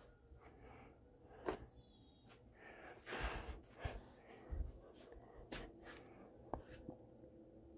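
Quiet room with scattered faint clicks and knocks. There is a short breathy rush about three seconds in.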